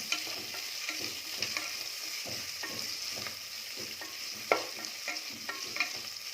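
Sliced onions sizzling in hot Dalda (vanaspati) in a pressure cooker, frying as they soften, with a spoon scraping and clicking against the pot at irregular intervals as they are stirred. The loudest knock comes about four and a half seconds in.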